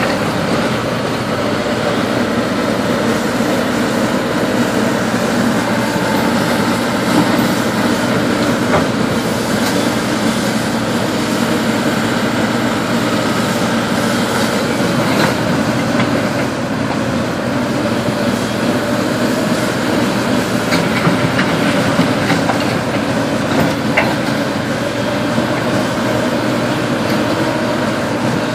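Case hydraulic excavator's diesel engine running steadily under load while it pulls down a brick building, with clanking and a few sharp knocks from the bucket and falling debris.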